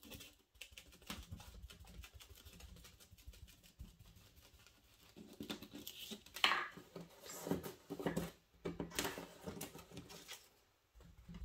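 A sponge dabbing paint through a plastic stencil onto heavy watercolor paper, a quick run of soft pats. In the second half there are louder, irregular rustles and taps as the stencil is lifted and moved about the paper.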